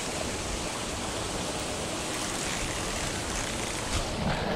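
Steady rushing noise of churning water at the surface of the pond.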